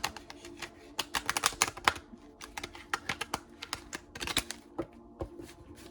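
Quick, irregular clicking and tapping in clusters, like typing, over a steady low hum.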